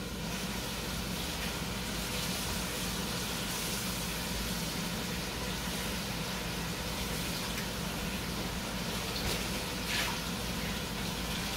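Chopped onions frying in oil in a stainless steel pot: a steady sizzle, with a couple of sharper pops near the end.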